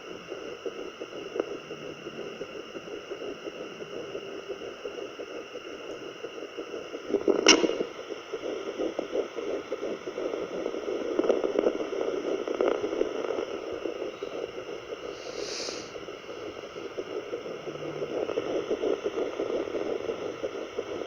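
Home fetal doppler playing the unborn baby's heartbeat at nine weeks: a steady static hiss with a rhythmic whooshing pulse that grows stronger and fades in turns. A sharp knock comes about seven seconds in.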